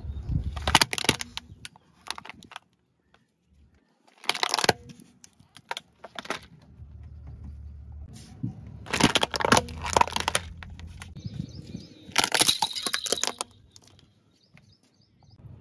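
Plastic toys cracking and crunching under a car tyre in four separate bursts, with a low rumble from the rolling car between them.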